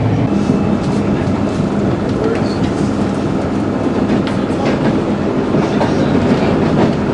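Passenger train running, heard from inside a carriage: a steady rumble of wheels on the rails.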